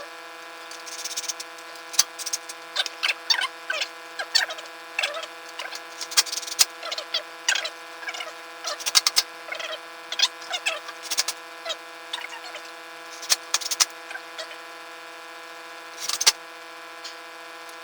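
Thin metal strap being pressed and worked into place across the front of a wooden wine rack: irregular clicks, taps and short squeaks of metal and wood rubbing under tension, over a steady background hum.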